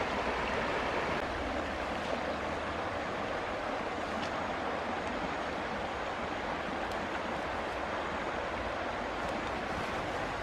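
Shallow river rushing steadily over rocks, with a few faint ticks.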